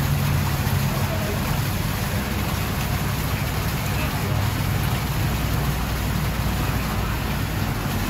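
Steady low machine hum with an even hiss over it, and indistinct voices in the background.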